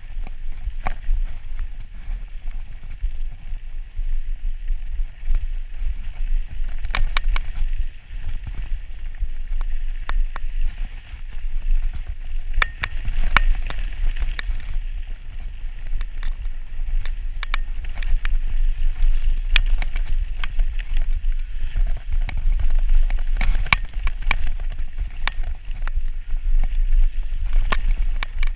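Mountain bike descending a dirt trail at speed: wind buffeting the microphone with a steady low rumble, tyres rolling over dirt, and many scattered clicks and clatters as the bike rattles over bumps.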